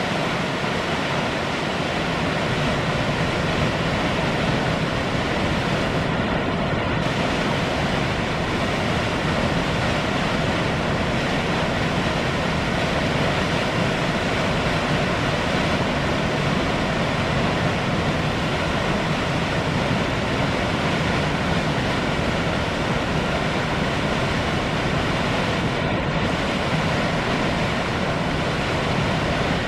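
Waterfall on the McCloud River pouring steadily: a constant, even rush of falling water.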